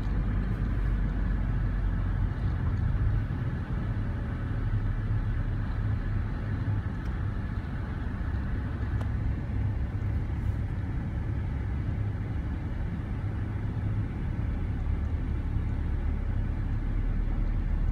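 Steady low rumble of a moving vehicle's engine and tyres on the road.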